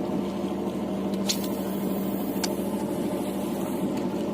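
A fishing boat's engine running steadily with an even hum. About a second in, a brief high hiss lasts about a second, with a click at its start and end.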